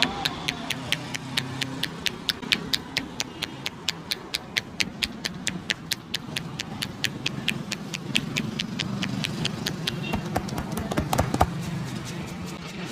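Rhythmic percussive hand-tapping on a person's head during a barber's head massage: crisp, evenly spaced taps at about four a second, ending about ten seconds in with a short quicker cluster of knocks, over a steady low street hum.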